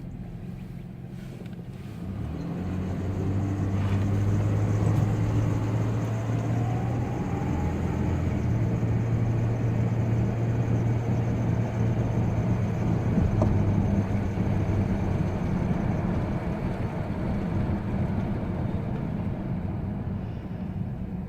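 2000 Ford Ranger's 3.0L V6 engine pulling under acceleration, with a steady low hum that grows louder about two seconds in and eases off near the end. A faint rising whine comes in about six to eight seconds in. This is the unexplained noise the owner hears only under acceleration with the engine not yet fully warm, and it fades when the accelerator is released.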